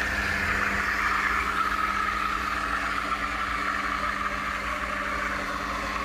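Commercial espresso machine running its extraction and milk steaming at once: a steady hum from the machine with the hiss of the automatic steam wand frothing milk in a jug, the hiss slowly dropping a little in pitch.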